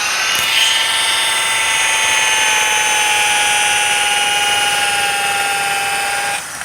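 Electric 7-inch variable-speed rotary buffer running with a steady whine while polishing a plastic headlight lens with compound. Its pitch sags slightly as the pad is worked across the lens, and it stops shortly before the end.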